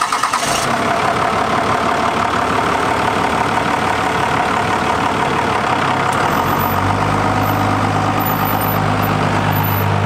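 Second-generation Dodge Ram's diesel engine running at a steady, rhythmic idle, then pulling off under a heavy load of hay bales and coming past close by; its deeper note grows louder from about two-thirds of the way in as the truck nears.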